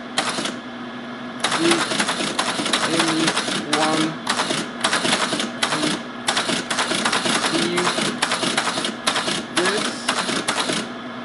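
Teletype ASR 33 typing and printing as keys are struck: runs of rapid mechanical clatter from its typing unit, broken by brief pauses, over the steady hum of its motor.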